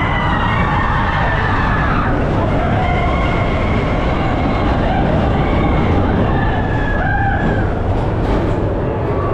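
Expedition Everest roller coaster train running along its track in the dark. A steady rumble of wheels, with long high-pitched tones that glide up and down over it.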